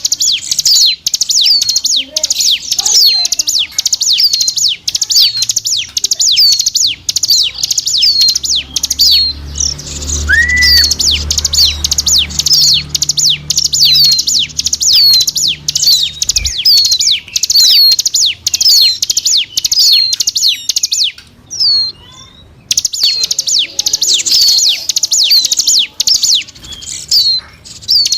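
Ciblek gunung (a prinia) lure-call song: sharp, high chirps with a hooked downward end, repeated quickly about twice a second, pausing briefly about three-quarters of the way in. A low hum runs underneath through the middle stretch.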